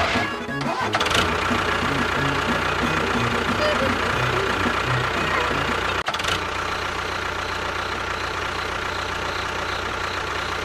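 A miniature construction machine's small motor running steadily with an even, low pulsing, broken by a short cut about six seconds in.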